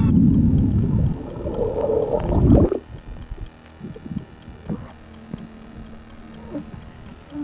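Water gurgling and rushing around a submerged action camera's microphone. It cuts off sharply under three seconds in as the camera is lifted out of the water, leaving a much quieter stretch with faint, evenly spaced ticking.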